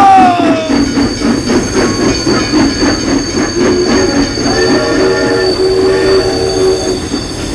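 Battery-powered toy Thomas the Tank Engine running along plastic track: a steady high whine over a fast, even rattle. From about the middle to near the end, a held tone of several notes sounds with it.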